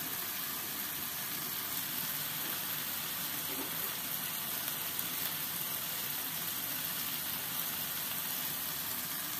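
Onion, tomato and ground chili sizzling steadily in a hot wok as they are stir-fried.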